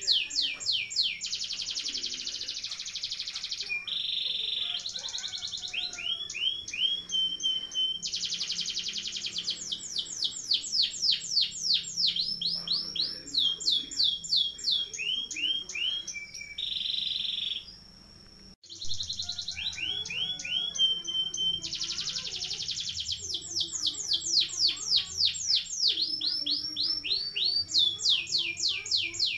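Domestic canary singing a long song of fast rolling trills: rapid series of high downward-sweeping notes running into one another, with a short break a little past halfway.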